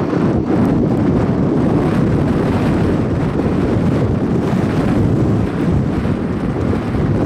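Strong wind buffeting the microphone: a loud, continuous low rumble of gusts that eases briefly about five seconds in.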